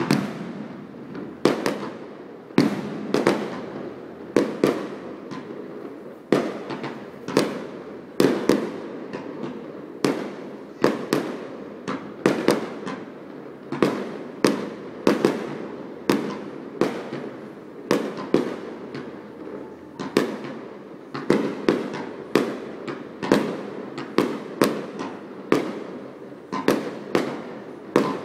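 Aerial fireworks shells bursting in quick, irregular succession, a sharp bang about once or twice a second, each trailing off in a short echo.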